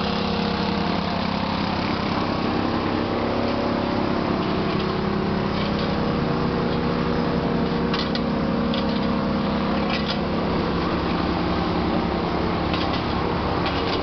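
Engine of a vibratory plate compactor running steadily while compacting a gravel street. Several short scrapes and clinks of shovels in gravel come in from about five seconds in.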